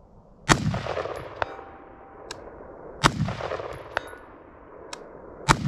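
Three AR-15 rifle shots about two and a half seconds apart, each trailing off in a long echo, with a faint ring of the steel target being hit a moment after each shot.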